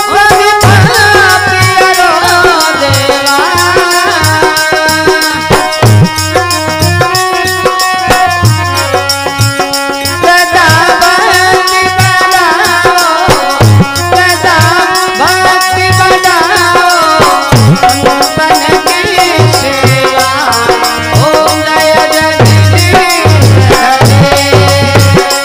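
Rajasthani devotional folk music: a melody with wavering, ornamented pitch plays over repeated drum beats and a steady shaking rattle.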